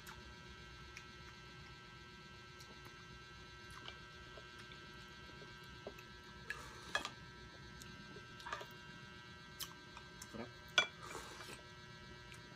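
Quiet eating sounds: soft sips of sinigang soup from wooden spoons, about six and eleven seconds in, among scattered light clicks of spoons and chopsticks on the dishes, the sharpest click just before the second sip.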